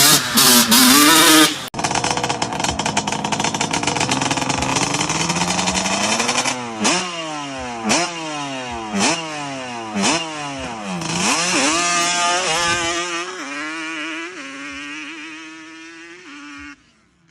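Yamaha Banshee 350's two-stroke parallel-twin engine being revved, its pitch rising and falling about once a second in repeated blips, then settling and fading out near the end. A louder burst of the same kind of engine sound cuts off shortly after the start.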